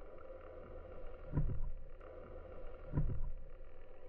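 Muffled sound from a camera held under the sea surface: a steady low water rumble with two dull low thumps about a second and a half apart.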